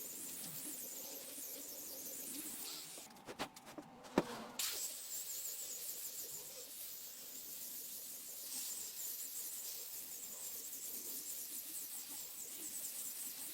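Steady high-pitched insect chirring. A few sharp knocks come about three to four seconds in, while the chirring briefly drops out.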